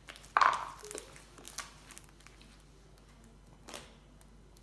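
Wet slime squelching in a bowl as it is worked by hand, with one louder squish about half a second in, then light clicks and rustles.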